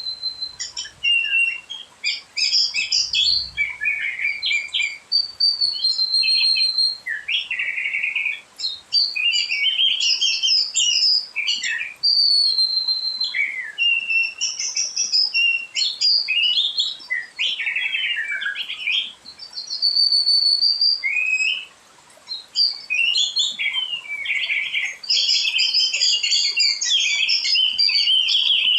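A songbird singing a long, varied song of clear held whistles, fast trills and falling notes, with a short break near the middle.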